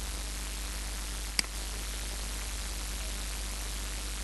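Steady recording hiss over a low mains hum, with one sharp click about a second and a half in.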